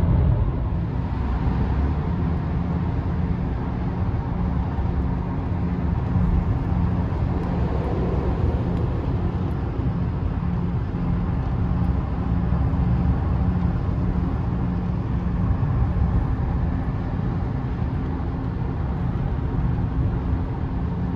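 Steady road noise inside a car's cabin while cruising at highway speed: an even low rumble of tyres and engine with a faint steady hum.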